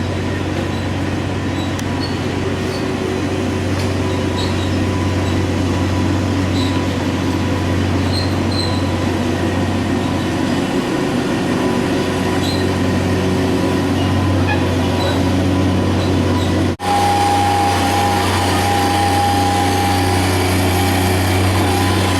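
Machinery running steadily with a low, continuous hum. About 17 seconds in the sound drops out for an instant, then resumes with a steady higher whine added.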